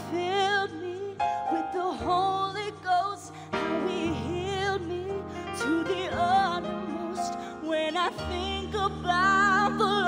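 A woman singing a gospel song solo into a handheld microphone, her voice wavering with vibrato on held notes, over instrumental backing of sustained chords that change every two to three seconds.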